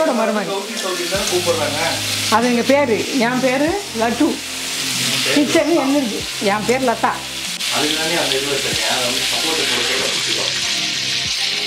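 Fish frying in oil on a dosa griddle, a steady sizzle, with a voice rising and falling over it through about the first two-thirds.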